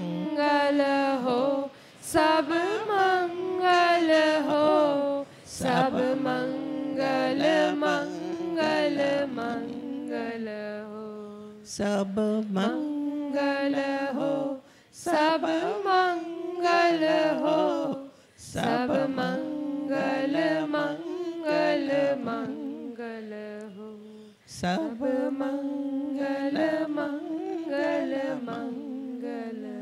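An older woman's voice singing a slow Hindi devotional blessing chant unaccompanied into a hand microphone, in long phrases with drawn-out notes and short pauses between them.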